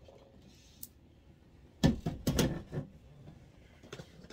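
Handling noise from a lip gloss tube being worked open: a light click about a second in, then a quick run of louder clicks and knocks around two seconds in, with quiet room tone between.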